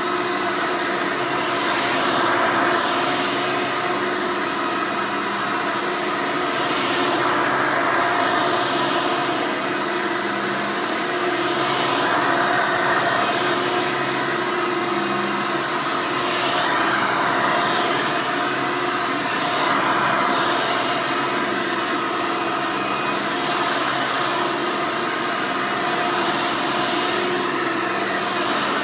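Hoover Soft & Light (Elite 200) upright vacuum's 7-amp direct-air motor running steadily, with a gentle rise and fall in loudness every few seconds.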